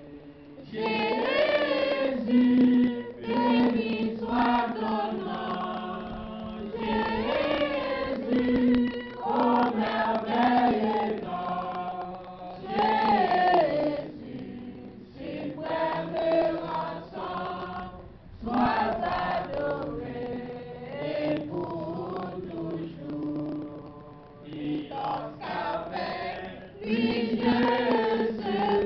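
Church congregation singing a worship song together, led by a man singing into a microphone. The singing comes in phrases of a few seconds with short breaks between them.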